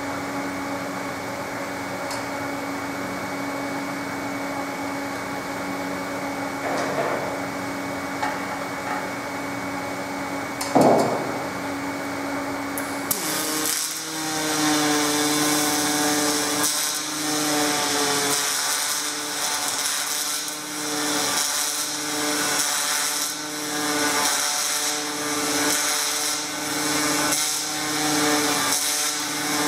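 Pulsed MIG welding arc on aluminum (1.2 mm ALSI5 wire under straight argon, Stel Max 403S power source) buzzing and crackling, starting about halfway in, its level swelling and dipping every couple of seconds. Before the arc strikes there is a steady machine hum, and a sharp knock comes just before the welding begins.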